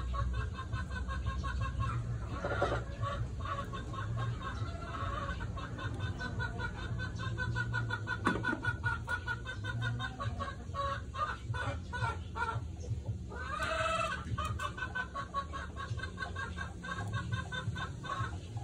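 Chickens clucking in rapid repeated pulses, with a couple of louder calls, over a steady low hum.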